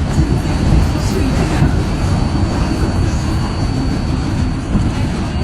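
New York City subway 7 express train running at speed between stations, heard from inside the car: a steady low rumble of wheels on rail, with a thin, high steady tone over it and a few light clicks.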